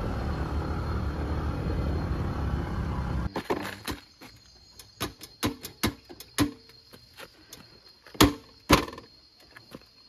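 Steady rumble of a motor scooter ride, engine and wind noise together, which cuts off about three seconds in. Then comes a run of sharp clicks and knocks, with two loud clunks near the end, as the seat of a parked Honda scooter is unlatched and lifted.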